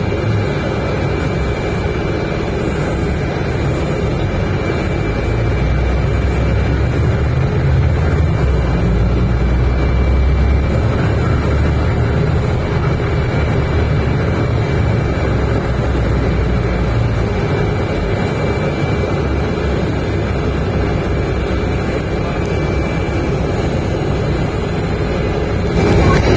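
Mercedes-Benz O405 bus under way, heard from inside near the front: a steady low engine drone with road noise that swells for a few seconds about a quarter of the way in, and a faint steady high whine.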